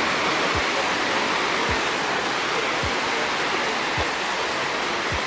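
Artificial cascade waterfall rushing steadily, close by. Low thuds about once a second sound under it, in step with someone walking.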